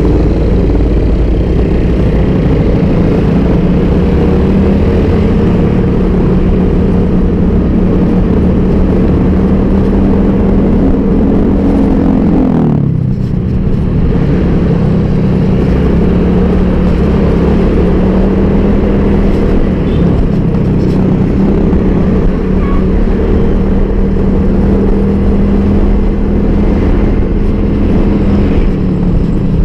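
Motorcycle engine running under way, ridden through traffic. Its steady note climbs for a couple of seconds about ten seconds in, drops suddenly near thirteen seconds, then settles back to a steady pitch, over a constant low rumble.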